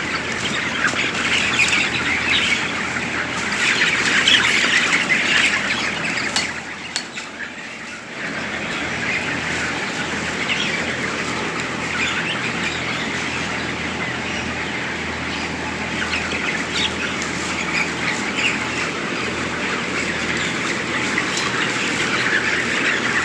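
A large flock of month-old farm chickens inside a poultry house, many birds clucking and chattering at once in a continuous din. The din drops briefly about seven seconds in.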